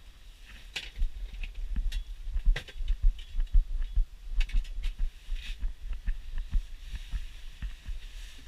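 Irregular low thumps and knocks with a few sharp clicks, from movement and handling inside an ice-fishing shanty.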